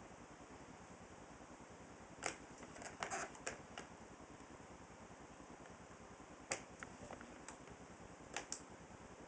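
Scattered light clicks and taps in small clusters, about two seconds in, around three seconds in, near the middle and shortly before the end, over a faint steady hiss.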